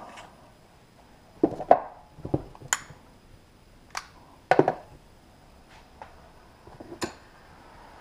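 About half a dozen sharp clicks and knocks of tools and parts being handled at a workbench, as a heavy battery cable with a crimped lug is set in a vise and a handheld propane torch is picked up.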